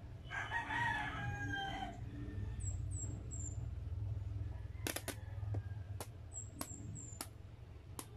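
A rooster crowing once, a pitched call of under two seconds starting just after the beginning, over a steady low hum. A few sharp clicks and faint, short high chirps follow in the second half.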